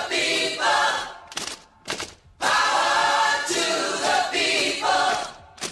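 Group of voices singing a cappella, as in a podcast intro jingle: a sung phrase, two short sharp sounds and a brief pause, then a longer phrase of about three seconds.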